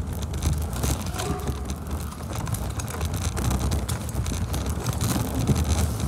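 Kick scooter wheels rolling over a concrete floor: a steady low rumble, with air buffeting the microphone as it moves.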